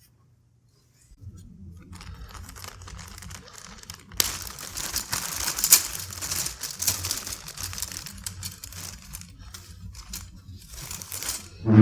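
Close rustling and crinkling handling noise as PC power and data cables are routed and pushed into place inside a computer case. It is much louder from about four seconds in.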